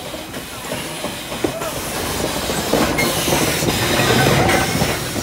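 Steam locomotive 218A rolling slowly past at close range as it runs around its carriages, getting louder as the engine and tender draw level.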